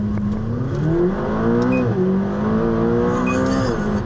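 McLaren 570GT's twin-turbo V8 under hard acceleration, heard from inside the cabin: the engine note climbs, drops sharply about two seconds in as it shifts up, then climbs again and falls near the end.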